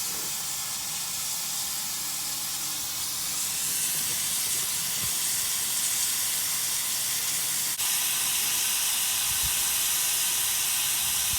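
Steady hiss of falling or spraying water, a little louder after a few seconds, with one sharp click about two thirds of the way through.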